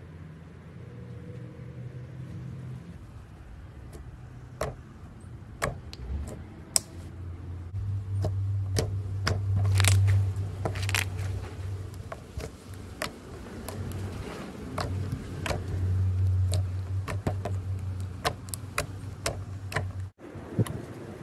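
A hand squishing and pressing slime on a table: small clicking pops come quicker and closer together from about four seconds in. Two spells of low rumble come as the hand presses down.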